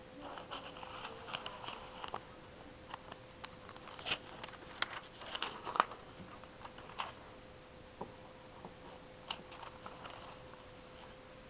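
Glossy newspaper coupon insert pages being handled and turned: a string of paper crackles and rustles, thickest in the first seven seconds, with a few more near the end.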